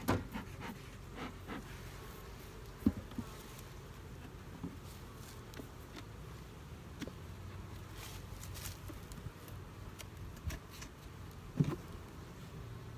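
Honey bees buzzing over an open hive, a steady low hum, with a few sharp knocks from the wooden hive parts being handled: one right at the start, one about three seconds in, and a louder one near the end.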